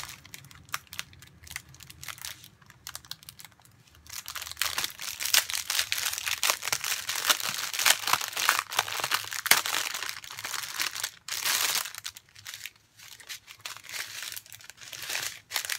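Thin clear plastic wrapping and small bags of diamond painting drills crinkling as they are unwrapped and handled. It is faint at first, then crinkles steadily from about four seconds in, with brief pauses.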